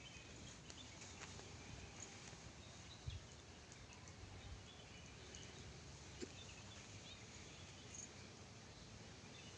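Near silence: faint outdoor ambience with a few brief, faint high chirps, like distant birds, and one soft thump about three seconds in.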